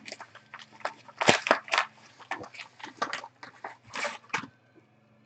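Packaging rustling and crinkling in irregular crackly bursts as an item is handled and pulled out, stopping about four and a half seconds in.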